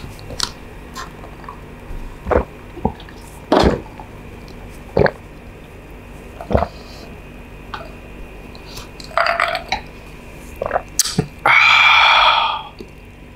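A person eating a plate of stir-fried instant noodles: scattered short clicks and smacks of chewing and cutlery. Near the end comes a louder, rushing sound about a second long.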